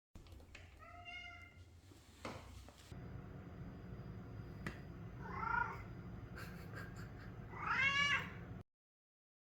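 American Curl cat meowing three times: a faint short meow about a second in, a second meow midway, and a louder last one that rises and falls in pitch.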